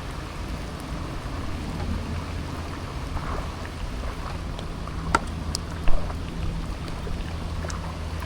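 Steady rain falling, with scattered sharper drops ticking close by, the loudest a little after halfway, over a low steady rumble.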